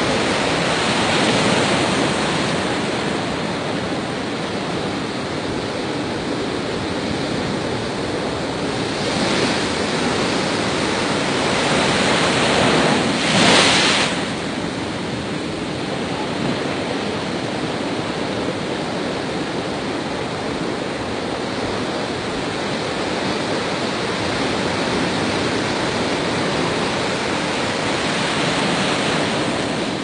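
Heavy storm surf breaking and surging against a pier: a continuous rushing of waves, swelling about a second in and again around nine seconds, with one brief loudest surge about thirteen seconds in.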